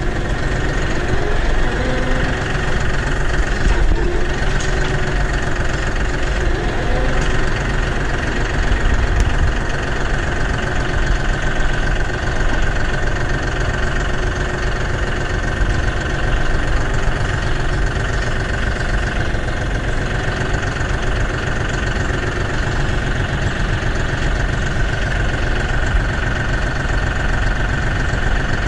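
Tractor engine running steadily at low speed as the tractor creeps in reverse. A steady high whine grows stronger in the second half.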